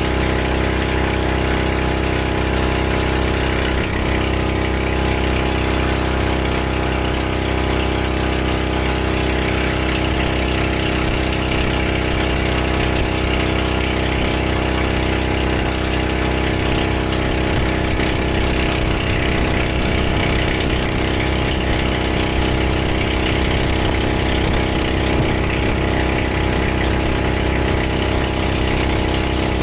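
Motorboat engine running steadily at one unchanging speed, with a hiss of water and wind over it.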